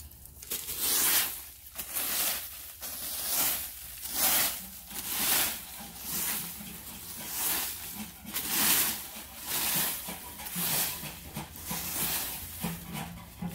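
Leaf rake scraping dry fallen leaves across bare ground, in repeated rustling strokes about one a second.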